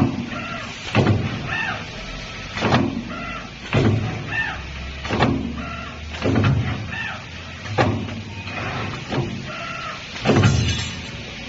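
JS-20 wire bending machine cycling: a sharp clunk roughly every second and a quarter. Most clunks are followed by a short whining tone that bends in pitch, as the motors move the wire through each bend.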